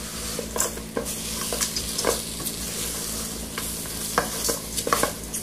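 A silicone spatula stirring and scraping cassava flour, fried bacon and banana around a thin stainless steel pot, with irregular scrapes and taps against the metal. Hot bacon fat sizzles underneath.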